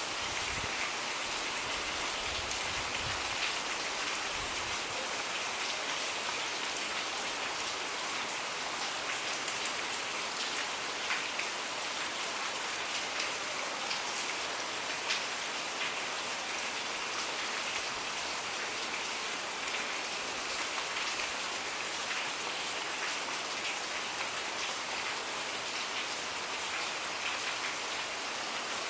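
Steady rain falling, an even hiss of many drops with occasional single louder drop ticks. A low rumble fades out in the first few seconds.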